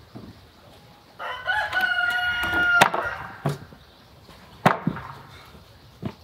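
A rooster crowing once, one call of about a second and a half that rises at the start and is then held. A few sharp knocks follow.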